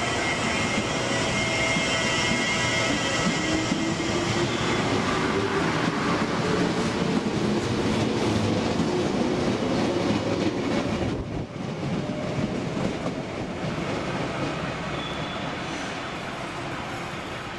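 A 413 series electric train pulling away from the station: the motor whine rises steadily in pitch as it accelerates, over the rumble of wheels on the rails. The sound grows quieter after about eleven seconds.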